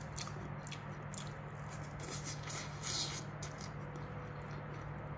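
Fingers squishing and mixing rice with broccoli-and-potato curry in a ceramic bowl, with soft, irregular eating sounds, over a steady low hum.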